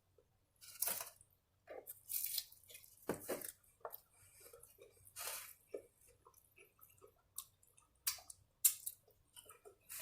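Close-miked chewing and mouth sounds of someone eating tacos: irregular short smacks and clicks.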